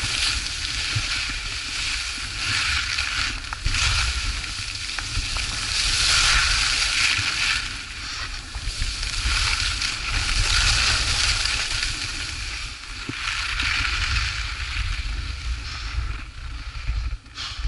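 Skis scraping and hissing over packed snow on a downhill run, the hiss swelling and fading in long waves with the turns, over a steady rumble of wind on the microphone. It drops off sharply near the end.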